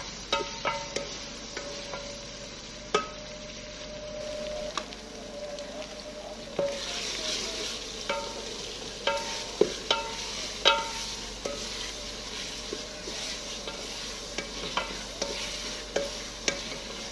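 A metal spoon stirs food in a steel cooking pot, clinking and ringing against the pot's sides at irregular moments. About seven seconds in, a frying sizzle rises in the pot and carries on beneath the clinks.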